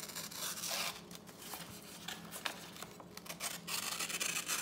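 A very sharp M390-steel slipjoint knife blade slicing through sheets of printer paper: several drawn-out papery rasps with light clicks and paper rustle between the strokes.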